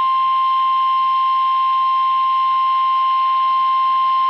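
NOAA Weather Radio's 1050 Hz warning alarm tone: one loud, steady, unbroken high tone with a hiss beneath it, heard through a weather radio. It signals an incoming alert, here a severe thunderstorm watch about to be read.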